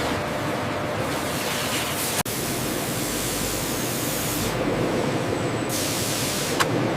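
Steady hissing rush of processing-line machinery, cut off for an instant about two seconds in, with a sharp click near the end.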